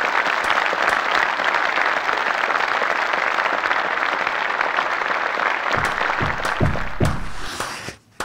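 Audience applauding steadily after the story's end, with a few short low sounds near the end before the clapping dies away.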